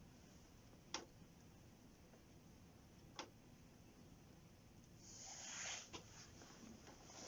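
Quiet campfire: burning wood gives a sharp pop about a second in and another about three seconds in, then a brief soft hiss and one more pop near six seconds.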